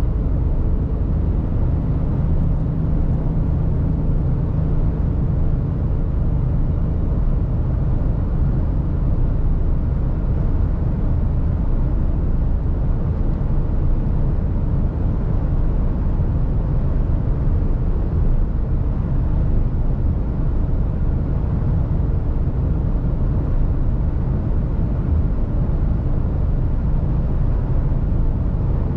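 Cab noise of a Mercedes Actros truck cruising at about 85 km/h: a steady low drone of engine and road noise, with a faint steady hum.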